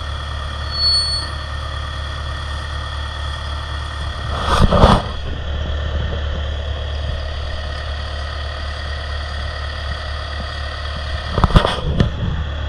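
Engine-driven pump running steadily with a low hum, with a short high whistle about a second in and two brief, loud bursts of noise, about five seconds in and near the end.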